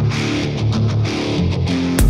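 Background music: a guitar-driven rock track with a steady beat.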